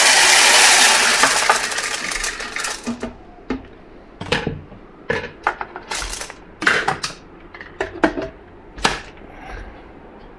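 Dry soybeans poured into the empty clear jar of a 2200 W Shark power blender: a dense, loud rattling rush for the first two seconds or so, thinning into scattered sharp clicks and knocks as the last beans drop in.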